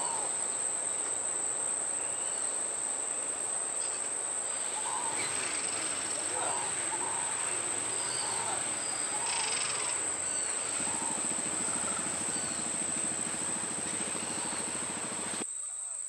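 Rainforest ambience dominated by a steady, high-pitched insect drone, with a few faint bird calls scattered through the middle.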